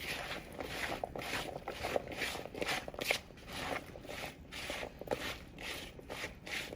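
Chopped, oiled potatoes being tossed in a bowl, a rhythmic series of short scraping, rattling strokes at about three a second.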